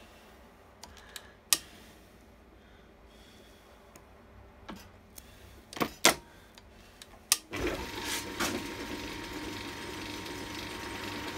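World War I capstan lathe being worked on hard stainless steel bar: sharp clicks and knocks of its levers and fittings over a low hum. About two-thirds of the way through, a louder steady running noise with a thin whine comes in as the machine runs and cuts.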